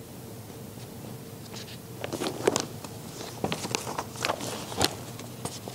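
Thin Bible pages being leafed through, a run of irregular soft papery rustles and flicks that starts about two seconds in.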